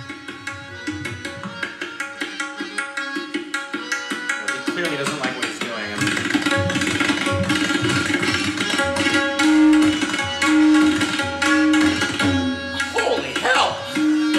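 Solo tabla played fast in a galloping rhythm that imitates a horse running: rapid strokes on the pair of hand drums, getting louder about six seconds in, with sliding drum tones here and there.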